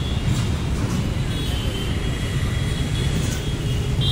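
Steady rumble of city road traffic, engines and tyres at a busy intersection, with a few short high-pitched tones now and then.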